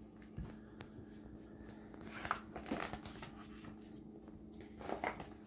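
Pages of a hardcover picture book being opened and turned by hand: a light click, then two short paper rustles, the second near the end, over a steady low hum.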